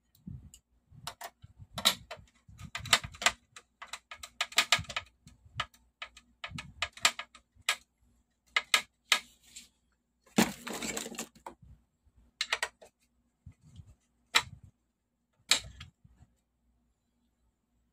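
Screwdriver and hands working on the metal frame and bracket of an opened LED TV: scattered sharp clicks, taps and short scrapes of metal and plastic, with a longer rattling scrape about ten seconds in.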